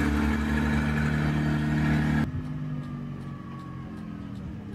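Forklift engine running steadily up close. About halfway through, the sound cuts abruptly to the same kind of engine heard quieter and farther off, its pitch sinking a little.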